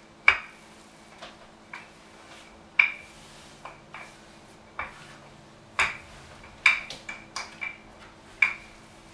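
Wooden rolling pin rolling out stiff cookie dough on a floured counter, giving sharp clicks with a short ring at irregular moments, the loudest every second or two.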